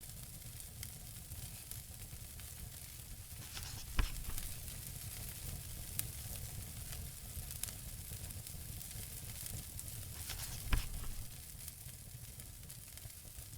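A steady hiss with a low rumble beneath it, scattered soft crackles, and two louder pops, about four seconds in and near eleven seconds.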